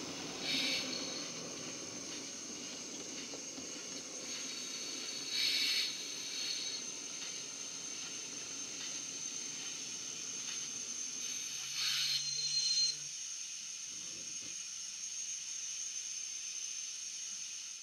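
Model steam locomotive's DCC sound decoder playing through its small built-in speaker: a steady steam hiss, with three short, louder blasts of steam about half a second, five and a half seconds and twelve seconds in. A low running rumble underneath dies away at about the third blast.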